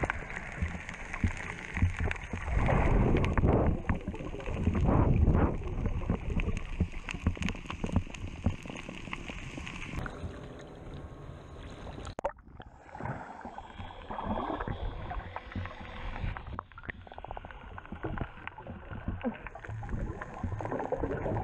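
Muffled water sloshing and gurgling around a GoPro in its waterproof housing as it moves underwater and at the sea surface, with louder rushes about three and five seconds in. The sound changes abruptly twice in the middle, where clips are cut together.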